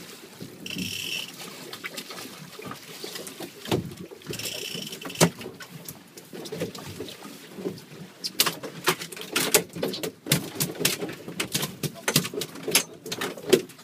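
A bluefish being landed on a boat: two short high buzzes early on, then from about eight seconds in a rapid, irregular run of sharp slaps and knocks as the fish thrashes on the deck, over a steady wash of water and wind.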